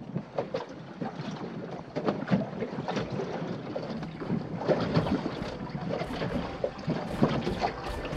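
Wind on the microphone and choppy water splashing against the hull of a small boat at sea, with irregular knocks and slaps.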